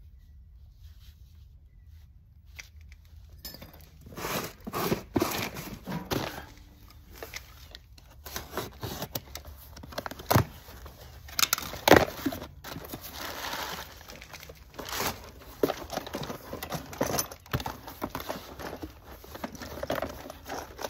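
Cardboard box and plastic packaging being torn open and rummaged through: crinkling, tearing and rustling with small clinks of metal fittings, starting about three and a half seconds in. There are scattered sharp knocks, the loudest about twelve seconds in.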